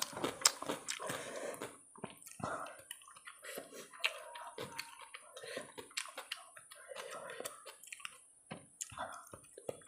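Fingers squelching and squeezing rice into thin curry gravy on a steel plate, with wet clicks, then wet chewing and mouth sounds as a handful is eaten.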